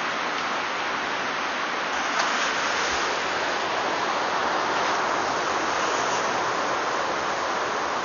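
White-water rapids rushing in a steady, unbroken stream of noise, with one brief tick about two seconds in.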